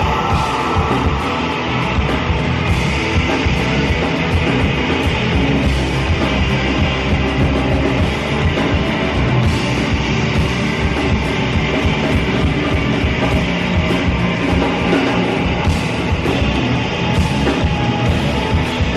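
Live band playing loud rock-leaning music: electric guitar, electric bass, drum kit and keyboards together, with a steady drum pulse.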